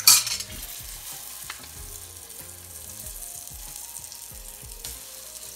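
Dried red chillies and spices frying in oil in a pan, a steady sizzle, with a loud burst of sizzling right at the start as salt goes into the hot oil.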